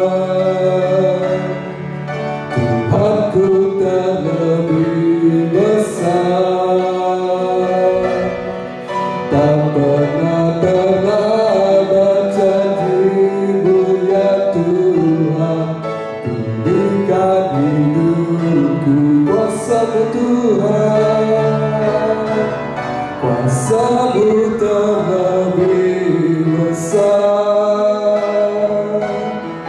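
A man singing a slow worship song into a microphone over an instrumental backing with long held notes.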